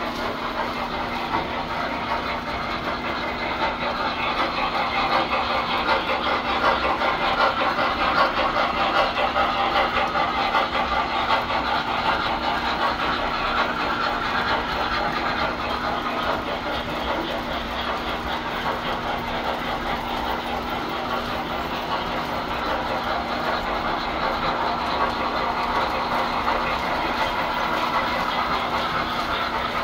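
Tinplate model trains running on the layout's track: a steady rumble of wheels and motors with fine rapid clicking, over a steady low hum.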